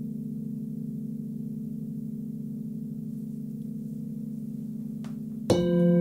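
Hand-forged Nepalese singing bowls ringing on with a low, slowly pulsing hum. About five and a half seconds in, another bowl is struck and rings out louder and brighter, with several overtones sounding together.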